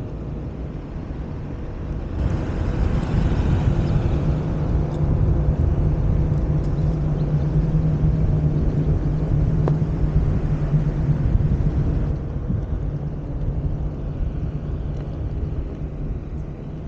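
Onewheel Pint's hub motor humming steadily as the board rolls over asphalt on its Burris tyre, with rushing road and air noise. The hum grows louder about two seconds in and eases off about twelve seconds in.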